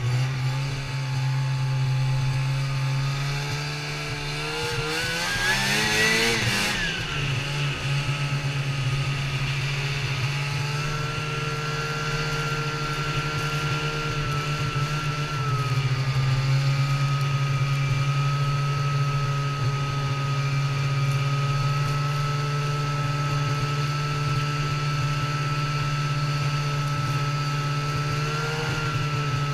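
Snowmobile engine running under way, heard from the rider's seat. Its pitch rises about four seconds in as it accelerates, drops back a couple of seconds later, and then holds a steady cruise with a thin, steady high whine over the engine.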